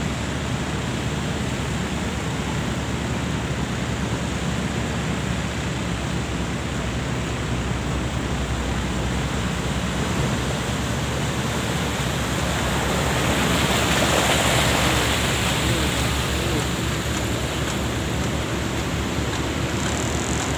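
An SUV driving through floodwater, its bow wave rushing and splashing over a steady rush of water noise. The sound swells for a few seconds past the middle as the vehicle passes closest.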